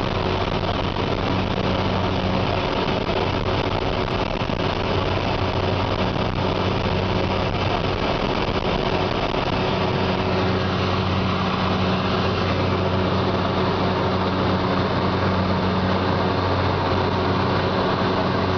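Skydiving jump plane's engine and propeller droning steadily at climb power, a constant low hum over a wide rush of noise.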